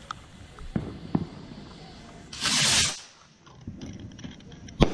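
Fireworks being set off: a loud hissing whoosh of about half a second midway, then a single sharp bang near the end.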